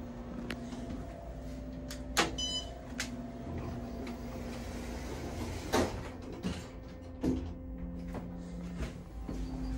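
OTIS hydraulic elevator's car doors standing open and then sliding shut, with sharp clicks and clunks of the door gear and the panels meeting, over a steady low hum.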